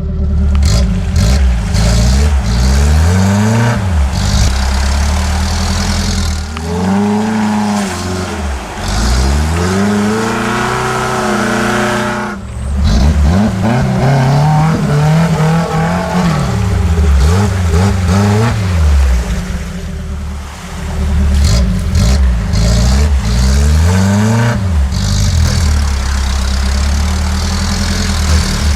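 An engine sound revving up and down over and over, its pitch rising and falling in repeated sweeps, with a couple of brief drops off the throttle.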